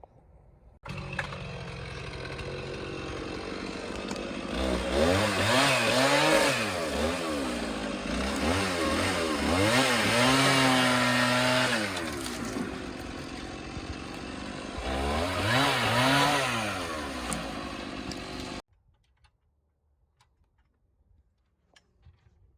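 Chainsaw cutting through a tree trunk, revved up and down several times. It starts abruptly about a second in and cuts off sharply near the end.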